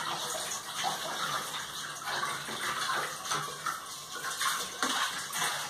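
Kitchen tap running while a pan is washed under it: water splashing into the sink, with a few light knocks of the pan.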